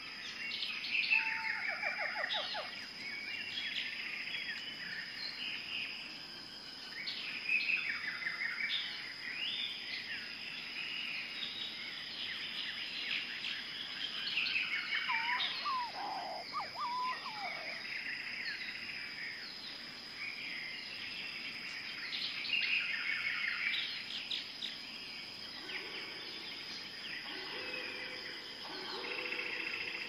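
Tropical forest ambience: many birds chirping and trilling over a steady high insect hum, with a lower whistled, gliding call about halfway through. Near the end a rhythmic pulsing call sets in.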